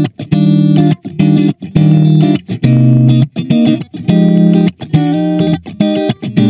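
Electric guitar, a SQOE SEST250 with HSS pickups, playing rhythmic chords that are cut off short, with brief gaps between them.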